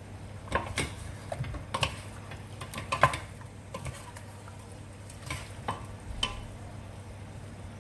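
A cooking utensil knocking and scraping against a pan while stirring chicken wings in a reducing soy-sauce adobo sauce, about a dozen irregular clacks with the loudest about three seconds in, over a faint sizzle and a steady low hum.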